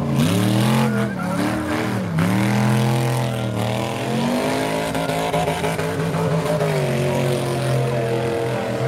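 Race car engine revving hard during a mud race, its pitch dropping sharply and climbing back up again and again.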